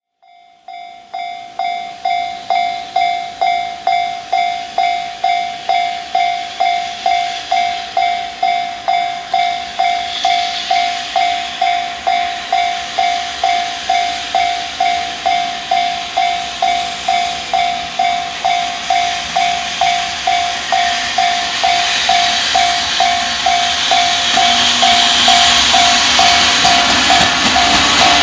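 Japanese level-crossing warning bell ringing steadily, about two strikes a second, while an approaching freight train's rumble and hiss grow louder through the second half.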